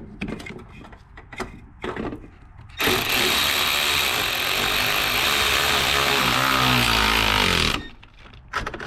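A few light clicks of the tool being set on a hose clamp, then a cordless power driver runs for about five seconds, its motor speed dipping as it draws up the intercooler coupler's clamp screw until it is tight, and stops abruptly.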